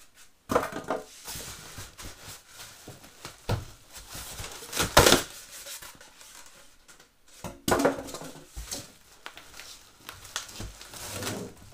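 Styrofoam packing pieces being pulled out of a cardboard box and handled: irregular scraping, rubbing and rustling, loudest about five seconds in.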